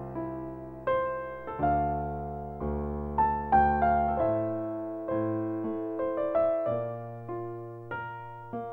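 Solo piano playing a slow love theme: single melody notes and chords struck about once a second, each left to ring and fade.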